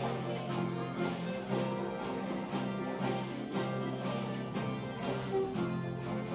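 Folia de reis music: acoustic guitars strummed in a steady beat about twice a second, with tambourine jingles.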